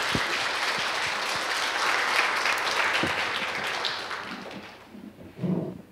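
Audience applauding, dying away after about four and a half seconds.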